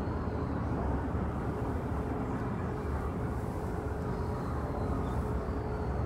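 Outdoor ambience: a steady low rumble with a faint steady hum.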